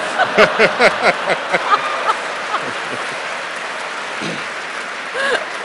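Large audience laughing and applauding; the laughter thins out after about two seconds, leaving steady clapping.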